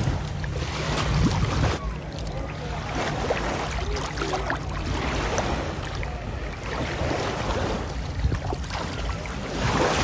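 Small sea waves lapping and washing over sand at the shoreline, with wind rumbling on the microphone.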